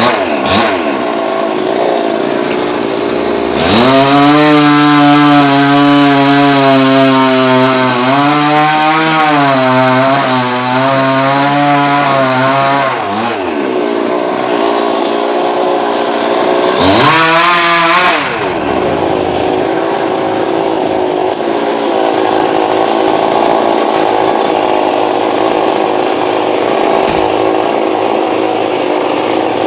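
Chainsaw engine running, revved high for about ten seconds starting a few seconds in with its pitch wavering, revved again briefly just past the middle, and running at a lower, steadier speed in between and to the end.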